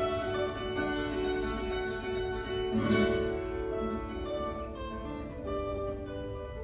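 Classical guitar played solo: a line of plucked, ringing notes, with one louder, accented chord about three seconds in.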